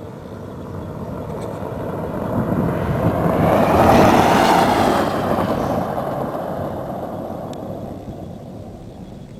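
An SUV driving past on a dirt track: engine and tyre noise grow louder as it approaches, peak about four seconds in as it passes close, then fade as it drives away, the pitch dropping as it goes by.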